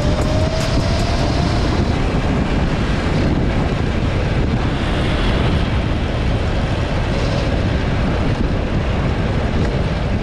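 Electric go-kart driven at speed: steady, loud rushing of wind over the microphone and tyre noise on asphalt, with a whine from its DC motor drivetrain rising in pitch as it speeds up, fading out in the first couple of seconds.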